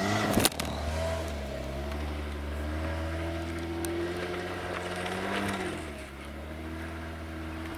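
Jeep engine running at low revs, its pitch rising briefly about five seconds in and then settling back. A short loud clatter comes in the first half second.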